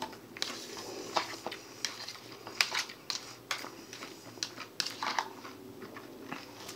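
Close-up chewing of crisp iceberg-lettuce salad, with irregular crunches and a fork clicking and scraping in the salad bowl.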